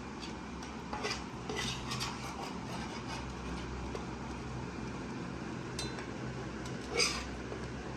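Metal utensils clinking and scraping against a pan and dishes: a few scattered knocks, the loudest about seven seconds in, over a steady low hum.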